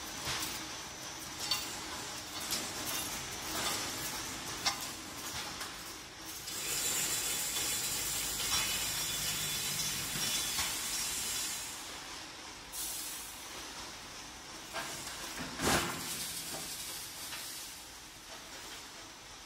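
Automatic chicken-cage making machine running on steel wire mesh: a steady mechanical hiss with scattered metallic clicks and clinks, a louder hiss for several seconds in the middle, and one sharper clank near the end.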